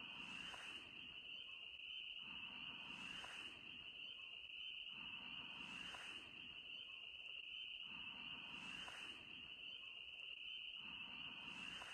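Faint, steady chorus of frogs calling at dusk, heard as a continuous high trill, with a soft swish about every three seconds.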